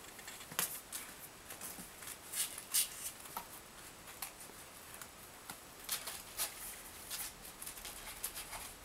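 Kittens' claws scratching and scrabbling on cardboard and blankets: irregular short scratchy clicks and rustles.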